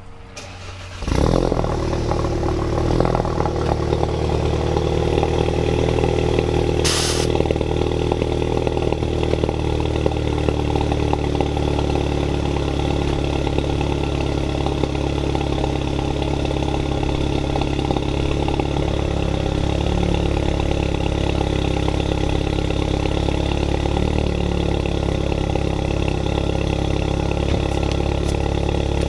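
VW Mk7 GTI's 2.0-litre turbocharged four-cylinder starting about a second in, through a freshly installed CTS high-flow downpipe, then settling into a steady idle. A brief hiss about seven seconds in.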